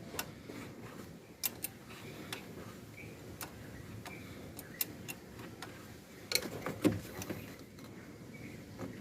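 Irregular sharp metallic clicks and ticks of hand tools working on engine-bay fasteners during starter motor removal, with a short cluster of louder knocks a little over six seconds in.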